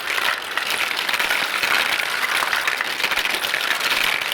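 Many marbles rolling and clattering down a marble run at once: a dense, steady rattle of tiny clicks.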